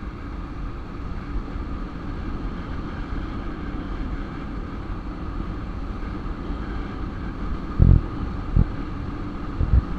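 Bajaj Pulsar motorcycle riding at a steady cruise: engine hum under wind rushing over the microphone. A few short low thumps come near the end.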